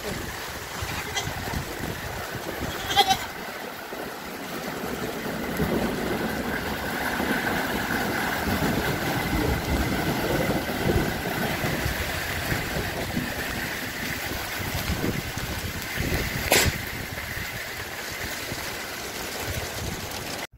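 Steady noise of hail and rain falling, thickening a few seconds in and holding. A goat bleats about three seconds in, and there is a sharp knock near the end.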